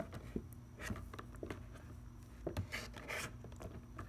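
Hands turning a clear plastic display case with a mini football helmet inside: a few short scrapes and light clicks of fingers and plastic.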